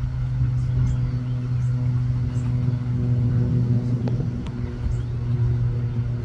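A steady low hum with evenly spaced overtones, loud and unchanging throughout. A few faint high chirps and a couple of light clicks about four seconds in sit on top of it.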